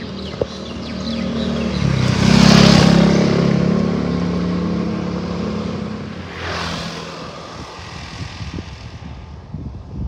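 Motor traffic passing close by: a vehicle's engine hum builds to a loud rush about two and a half seconds in, and a second, smaller pass-by follows about four seconds later before the noise eases off.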